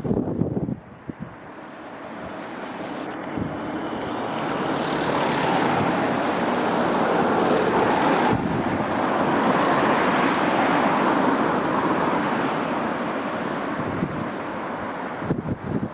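Electric passenger train passing through the station: a rushing rumble of wheels on the rails that builds over several seconds, holds, then eases off near the end.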